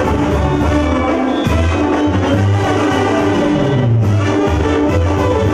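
Live Mexican banda music: trumpets and trombones playing over a stepping tuba bass line and drums with a steady beat.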